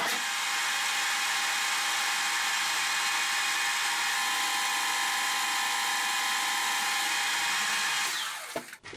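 Metal-turning lathe taking a turning pass of 1.5 mm off the diameter: a steady, high-pitched hiss of the cut with steady tones in it. It holds level, then dies away a little after eight seconds in.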